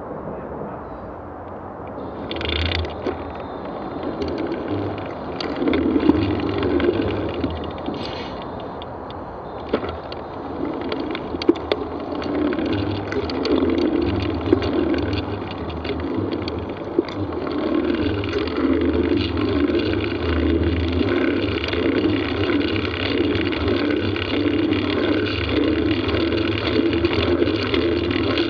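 Bicycle being ridden over a muddy track: a steady rolling rumble from the tyres and bike, with scattered sharp knocks and rattles, getting louder a few seconds in.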